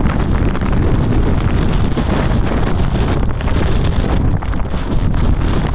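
Strong blizzard wind buffeting the microphone: loud, continuous noise, heaviest in the low end.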